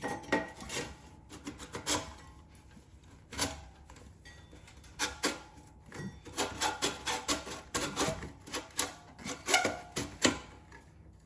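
Ratchet wrench clicking in short runs of quick clicks as the clamp bolts on exhaust tips are backed off, with some metal-on-metal rubbing between runs.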